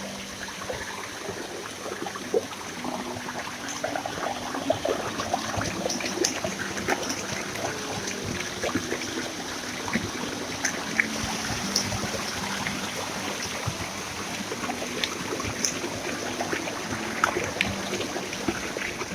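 Stream water splashing and trickling over rocks, a steady wash with many small splashes, with faint background music notes underneath.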